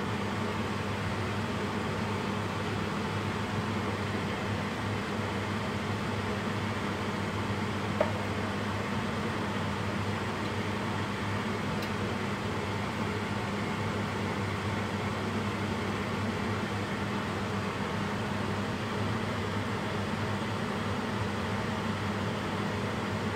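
Steady mechanical hum of a running appliance motor, with a low drone and even hiss, and one short click about eight seconds in.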